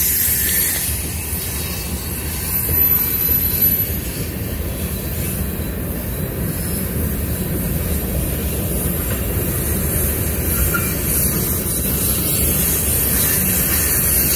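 Conrail freight cars rolling steadily past, wheels rumbling on the rails with a lot of high-pitched wheel squealing.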